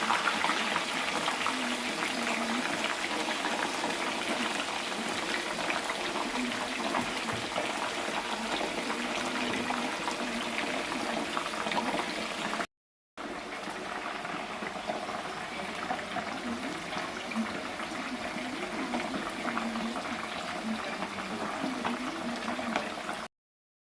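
Liquid bubbling in a cooking pot on the stove, a steady crackling hiss that breaks off briefly about halfway through and then resumes.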